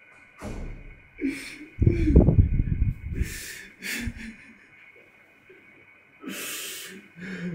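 A man breathing hard and sighing in distress: several sharp breaths, a loud groan about two seconds in, and a long heavy exhale near the end.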